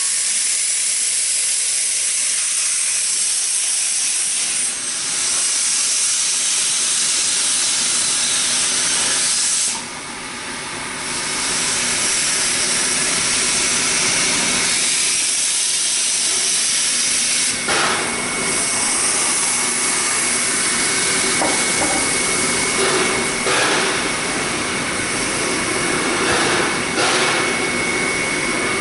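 Steam locomotive hissing steam steadily as it moves slowly into the engine house, the hiss dropping briefly about ten seconds in. A few sharp clanks and a thin steady high tone come in during the second half.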